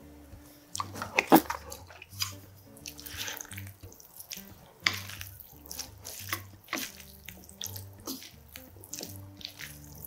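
Wet squelching and clicking as chopsticks toss and mix sauced somen noodles with oxtail meat and chives in a ceramic bowl, in many short irregular strokes, with one sharp knock about a second in.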